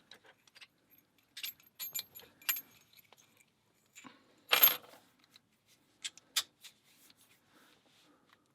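Heavy padlock being worked by hand: scattered sharp metallic clicks and clinks, the loudest about four and a half seconds in.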